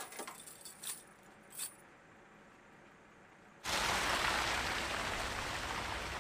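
Steel tire chains clinking and jingling a few times as they are fitted over a semi-truck's wheels. About three and a half seconds in, a loud steady rushing noise starts.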